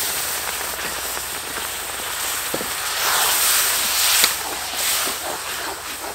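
Sauce boiling hard and sizzling in a hot metal wok, a dense crackling, while a metal spoon stirs and scrapes through it.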